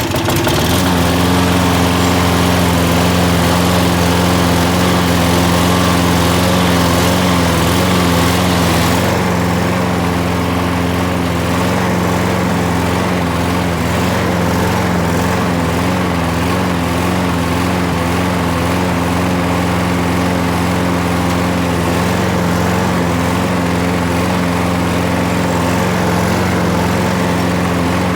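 Toro Super Recycler lawn mower's 6.5 hp Briggs & Stratton Quantum single-cylinder four-stroke engine catching on the pull-start and running steadily, a little quieter in its high end from about nine seconds in. It starts and keeps running on its own fuel after a carburetor clean, with no starting fluid.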